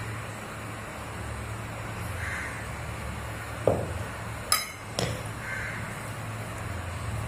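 Three short clinks and knocks of tableware near the middle, as a serving spoon and plate are handled on a table, over a steady low hum.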